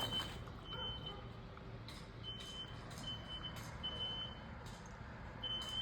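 Smoke alarm beeping in its temporal-three evacuation pattern: three short high-pitched beeps, a pause of about a second and a half, then three more. A steady low hum runs underneath.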